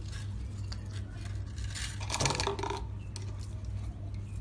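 A kitten playing with a small ball on a tiled floor: scattered light clicks and scrapes, with a louder scuffle about two seconds in, over a steady low hum.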